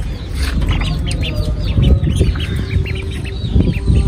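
Chicks peeping over and over in short, quick high calls. Low knocks and handling noise come from the wooden cage, loudest about two seconds in.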